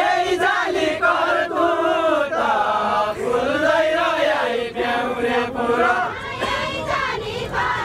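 A group of men singing a Deuda, the Far-Western Nepali folk song sung while dancing hand in hand. They sing together in long, drawn-out melodic lines, with no instruments.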